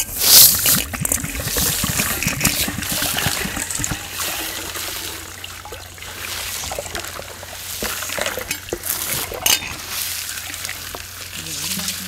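Water poured from a clay pot into a steel pot, splashing and trickling, while a hand stirs crushed jaggery in it. Loudest as the pour begins.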